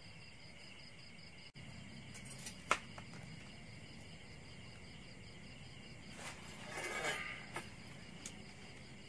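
Steady night chorus of crickets chirping in pulsing trills. A sharp click about a third of the way in, and a brief crackling rustle near the end as the charred grilled rabbit is pulled apart off the metal grill rack.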